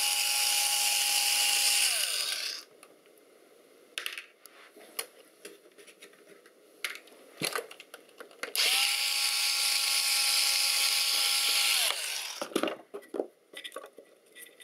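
Electric screwdriver running twice, each run about three seconds at a steady pitch and then winding down, undoing screws from a metal panel. Between the two runs there are small clicks and taps of screws and parts being handled.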